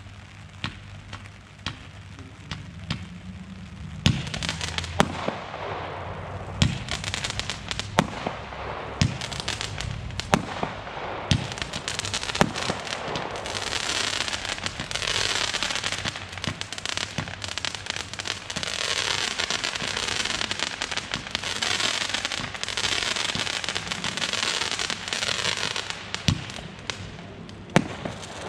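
Consumer fireworks going off. A string of sharp shots and bangs starts about four seconds in, then builds into a long, dense crackling stretch that dies away shortly before the end.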